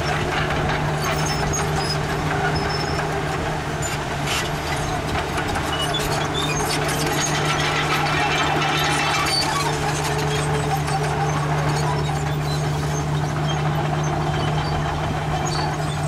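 Crawler bulldozer's diesel engine running steadily under load as it pushes dirt, with occasional clanks.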